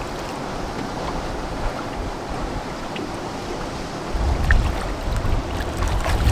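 Water lapping and splashing at the side of a small boat where a wels catfish is held at the surface for release. Wind rumbles on the microphone, growing stronger about two-thirds of the way through.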